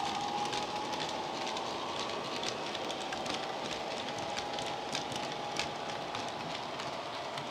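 Model railway freight wagons rolling past on the track, a steady light rattle with irregular sharp clicks from the wheels. Behind it the faint drone of the Class 66 locomotive's sound-decoder engine, played through its onboard speaker, fades away.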